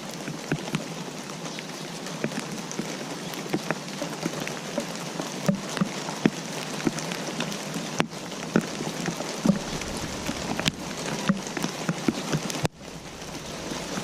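Steady rain falling, with many individual drops tapping sharply over the hiss, a few of them louder. The sound drops suddenly in level near the end, then carries on more quietly.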